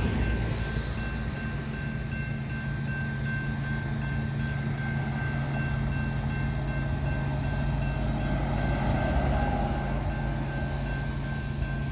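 BNSF freight train of auto-rack cars passing at speed: wheels on rail make a steady noise with a thin, steady high ring over it.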